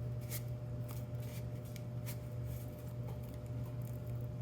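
Faint paper rustles and light clicks as clipped paper tabs are folded down and pressed onto the glued end of a cardboard tube, over a steady low hum.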